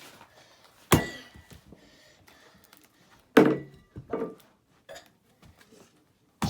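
Hard blows struck against an old Samsung tablet as it is smashed. There is a sharp hit about a second in, a louder knock with a brief ring around three and a half seconds followed by a smaller one, and another sharp hit right at the end.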